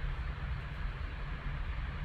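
Steady low hum with an even hiss: room background noise, with no distinct event.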